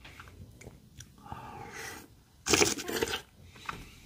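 Close-miked eating of strawberry yogurt shaved ice with a wooden spoon: soft small clicks and mouth sounds, then about two and a half seconds in a short, loud crunchy scrape lasting under a second.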